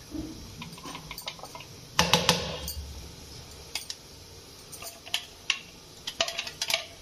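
Stainless-steel mixer-grinder jar knocked and scraped against a steel plate of flour to empty out ground greens paste: a loud metallic clatter about two seconds in, then scattered light clicks and taps.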